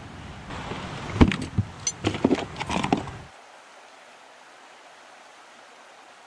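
Camping gear being picked up and handled on grass: rustling with several sharp clicks and knocks for about three seconds, then only a faint hiss.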